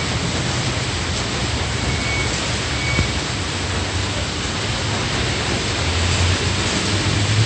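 Rain falling steadily on the road and parked vehicles, a constant even hiss, with a low rumble underneath.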